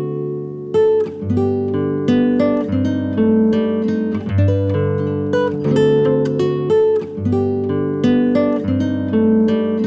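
Acoustic guitar music, plucked and strummed chords in a steady rhythm.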